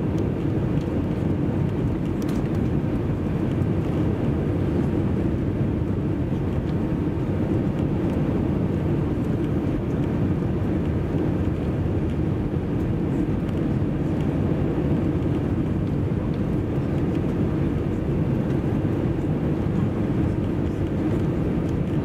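Cabin noise inside an Airbus A320 on final approach: a steady, deep rumble of the engines and rushing airflow, unchanging throughout.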